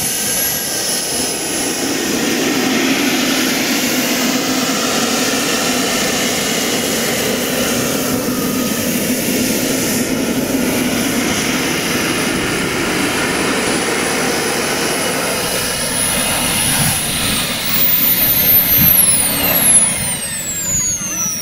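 Twin jet engines of a large radio-controlled A-10 Warthog model running with a steady high whine while it taxis. Near the end the engines spool down: the whine falls steadily in pitch and the sound dies away as the model stops.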